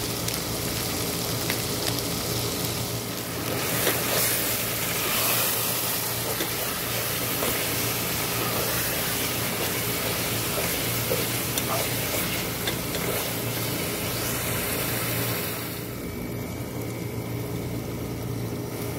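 Tomato, ginger-garlic and spice masala sizzling steadily as it fries in oil in a pot, with a spatula stirring it. The sizzle gets brighter about four seconds in and eases about three seconds before the end.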